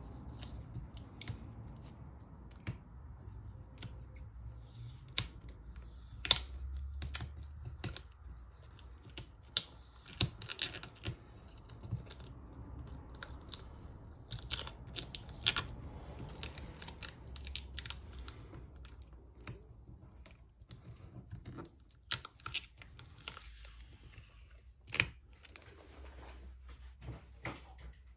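Adhesive vinyl mask being picked at and peeled off a carved oak board by hand: irregular small clicks with short tearing and crinkling as strips of film come away.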